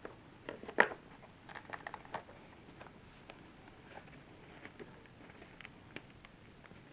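Scattered light clicks and taps of lamp parts, the shade rings and clips, being handled and fitted together, the sharpest click a little under a second in.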